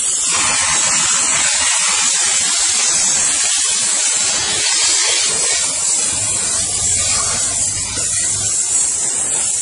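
Small 4000-watt steam car wash machine's nozzle spraying a jet of steam onto a car: a loud, steady hiss.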